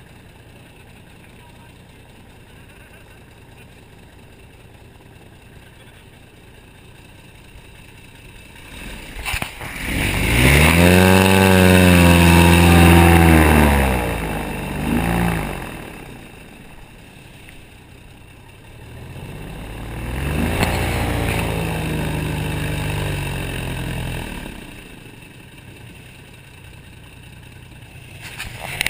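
Airboat's engine and propeller running low, then revving up hard about ten seconds in, its pitch rising and falling for a few seconds before easing off. It revs up again for a few seconds about two-thirds of the way through, then drops back to a low run.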